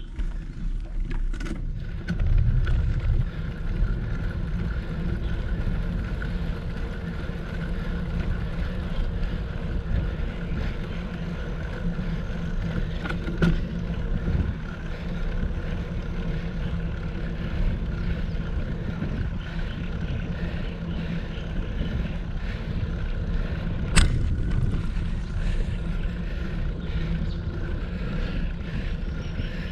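Wind on the GoPro's microphone and tyre and road noise from a moving bicycle, with a sharp knock about three-quarters of the way through.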